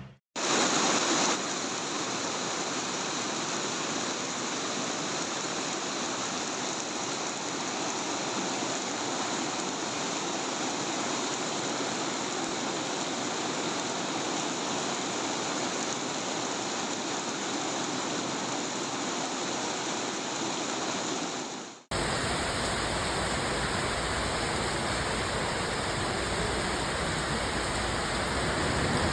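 Steady rush of water, as from floodwater or a heavy downpour. The sound breaks off abruptly about three quarters of the way through and resumes as a deeper rush of water.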